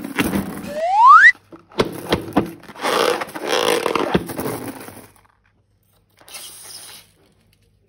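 Slime and a rubber balloon being squeezed and handled: wet squishing and crackling, with a short, loud squeal rising in pitch about a second in, then a few sharp clicks and more squishing that fades out around five seconds in.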